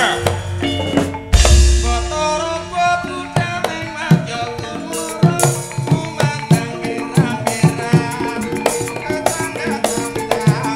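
Javanese gamelan music accompanying tayub dancing: kendang hand drums over the ringing pitched tones of the ensemble, with a deep boom about a second in. From about halfway through, the drums settle into a steady driving beat.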